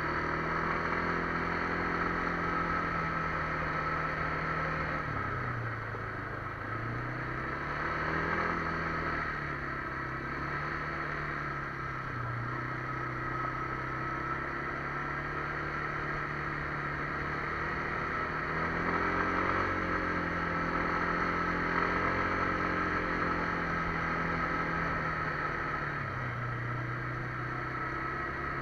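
Kymco MXU 300 ATV's single-cylinder four-stroke engine running under way, its pitch dipping and picking up again several times as the throttle is eased and reopened.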